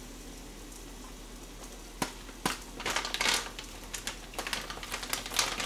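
Scattered light clicks of kitchen utensils and a brief rustle as things are handled on a kitchen counter, starting about two seconds in after a quiet stretch.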